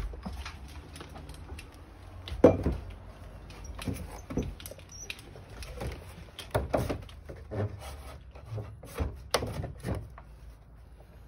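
A metal anchor pressure plate being handled and positioned against a wooden roof rafter: irregular knocks, taps and scrapes of metal on wood, the loudest about two and a half seconds in.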